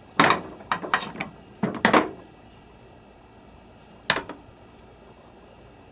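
Sharp clicks and knocks of hose reel parts and tools being handled during disassembly: a quick cluster of about six in the first two seconds, then one more about four seconds in.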